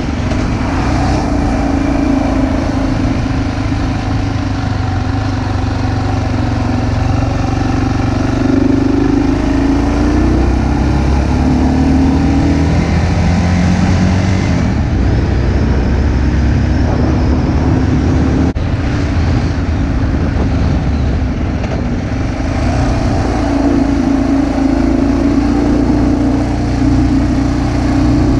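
Engine and road noise of a vehicle driving a winding mountain road, heard from the camera mounted on it; the engine note rises and falls as the vehicle speeds up and slows through the bends.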